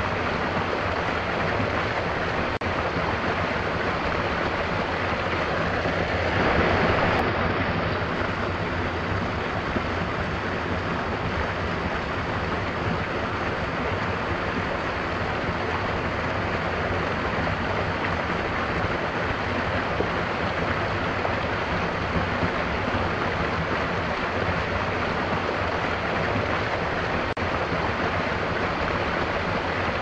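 Small stream cascading over a rock step into a pool: a steady rush of splashing water, swelling slightly about six seconds in.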